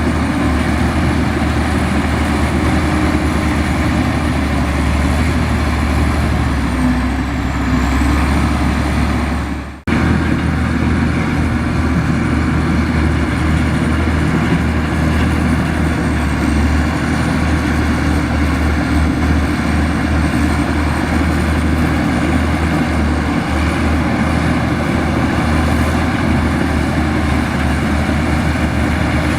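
Diesel engine of heavy earth-moving machinery running steadily, with a faint high whine over it. The sound drops away for a moment about ten seconds in and cuts back in abruptly.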